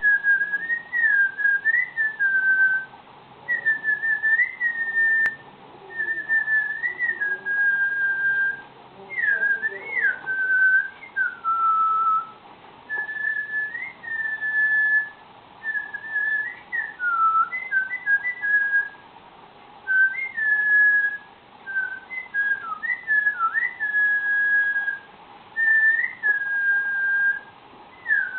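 Cockatiel whistling its song: a string of clear whistled phrases, each a few notes with quick up-and-down slides, separated by short pauses.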